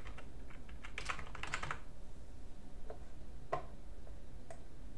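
Typing on a computer keyboard: a quick run of keystrokes over the first two seconds, then a few single clicks spaced out through the rest.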